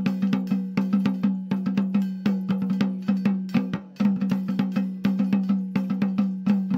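Folk percussion music: quick, sharp drum strokes, several a second, over a steady low tone, accompanying dancing.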